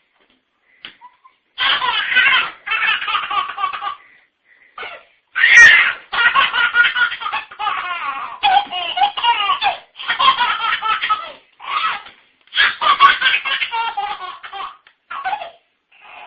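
A young child laughing hard in repeated bursts of belly laughter, starting about a second and a half in.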